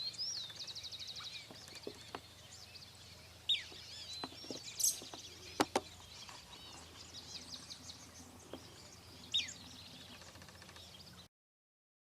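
Several wild birds calling: high chirps, a fast even trill just after the start, and a few whistles that slide downward. Two sharp clicks come in the middle. The sound cuts off suddenly about a second before the end.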